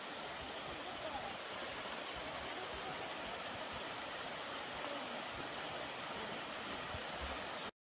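Small mountain waterfall tumbling over rocks, a steady rush of water that cuts off suddenly near the end.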